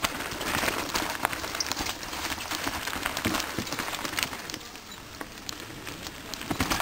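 Mountain bike rolling along a dirt trail: a steady crackle of tyres on dirt and gravel, with frequent small clicks and rattles from the bike.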